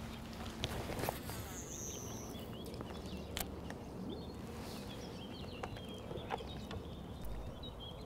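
Quiet outdoor ambience with small birds chirping faintly and a few sharp, isolated clicks a second or two apart.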